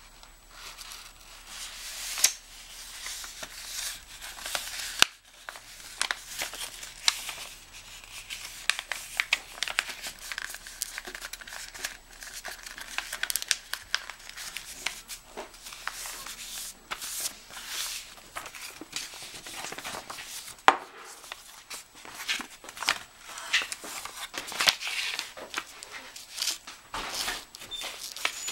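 A sheet of white paper rustling and crinkling as hands fold it into a paper airplane and press the creases flat, in a steady string of short, sharp crackles.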